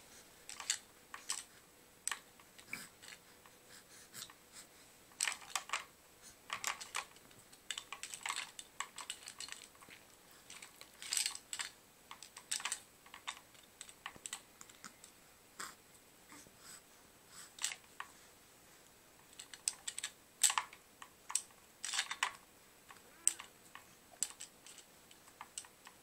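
Hanging plastic toys on a baby activity gym clicking and rattling in short, irregular clatters as the baby bats at them.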